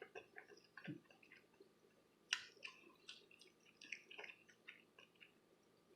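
Faint chewing: soft, scattered mouth clicks and smacks of someone eating a beef hot dog on a soft bun, one a little louder a couple of seconds in.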